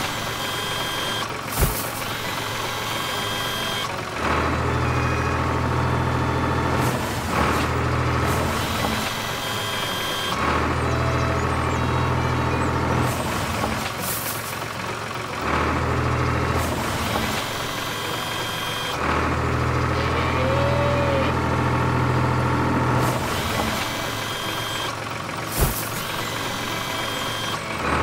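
Cartoon tractor engine sound effect running, its low rumble coming and going in stretches of a few seconds. There are two sharp knocks, one about a second and a half in and one near the end.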